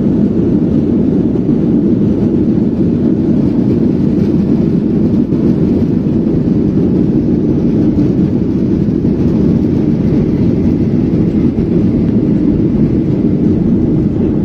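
Steady, loud cabin rumble inside a Boeing 737-800 on approach with flaps extended: the noise of its CFM56-7B turbofan engines and the airflow over the fuselage, unchanging throughout.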